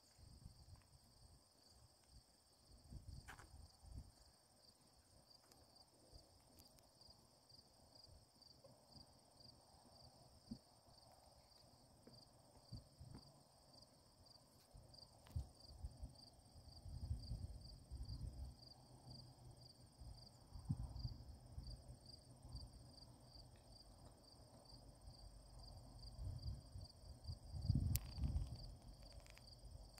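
A cricket chirping in an even, steady rhythm, faint, with gusts of wind rumbling on the microphone now and then, most in the second half.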